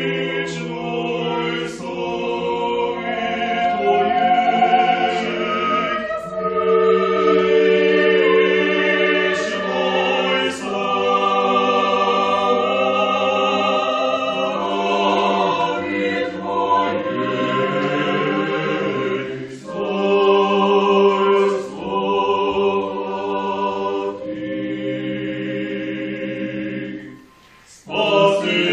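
Mixed choir of men's and women's voices singing Orthodox church music a cappella in sustained chords, with a brief pause near the end before the singing resumes.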